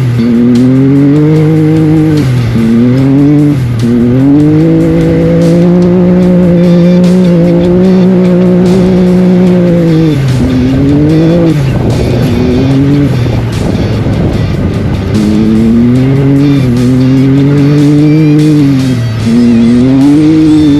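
An off-road race vehicle's engine accelerating hard, its pitch climbing in short steps through several quick gear changes. It holds steady at speed, eases off about halfway through into a rough, noisy stretch, then pulls up through the gears again near the end.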